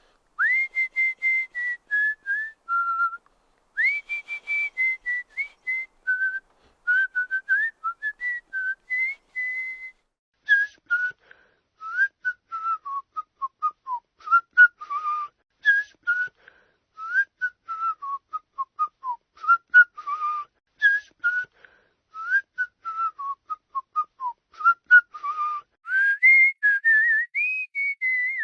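A person whistling a tune of short, clear notes that slide up and down in pitch, in quick phrases with a couple of brief pauses.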